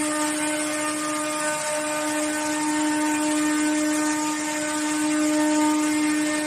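Corrugated cardboard production line machinery running: a steady motor whine on one constant pitch over a continuous hiss of machine noise.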